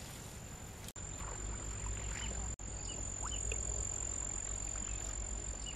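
Outdoor wildlife ambience: short chirps repeating from a bird or frog over a steady high insect-like tone and a low rumble. The sound drops out briefly twice in the first few seconds.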